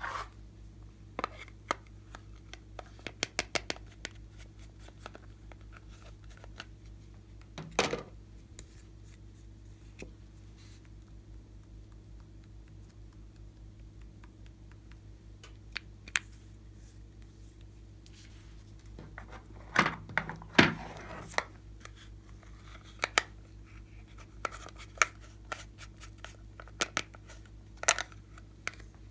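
Scattered small clicks, taps and scraping as hands handle a decorated slime and its stiff Peppa Pig cut-outs, with a louder cluster of scraping and clicking about twenty seconds in. A low steady hum runs underneath.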